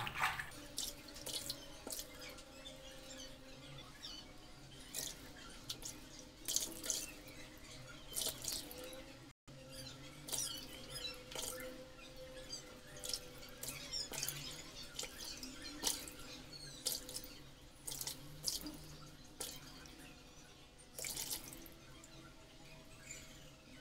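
Water splashing and dripping in a bowl as hands rinse and work raw chicken gizzards, with irregular small wet splashes throughout.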